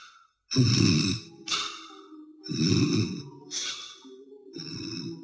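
Cartoon snoring from the sleeping Gauls: three rasping snores drawn in about two seconds apart, each followed by a hissing, whistling breath out. Faint soft music notes come in near the end.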